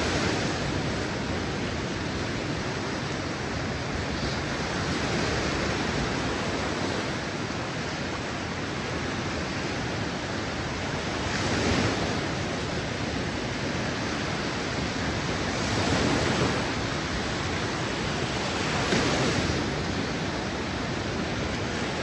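Small waves breaking and washing up a sandy beach: a steady rush of surf that swells louder three times in the second half as individual waves break.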